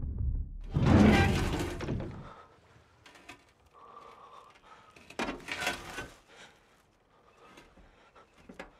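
A heavy, sudden hit about a second in that dies away over about a second, then quieter scraping and rustling around five seconds in as a leaf-covered hatch in the forest floor is pushed up from below.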